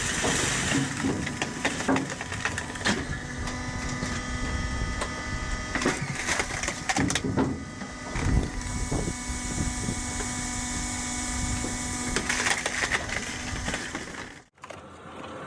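A hydraulic wood splitter running with a steady hum while logs crack and split, with irregular knocks and cracks of wood. The sound cuts off abruptly about a second before the end.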